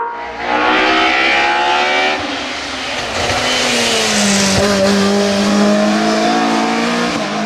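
Opel Kadett C hillclimb race car engine under hard throttle. The revs climb, break with a gear change about two seconds in, then the note falls and settles into a lower steady drone.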